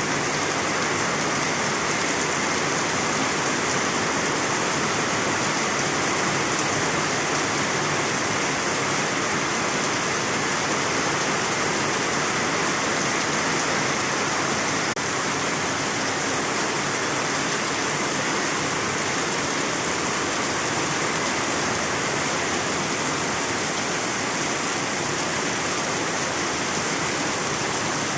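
Heavy rain falling: a steady, dense hiss of rain.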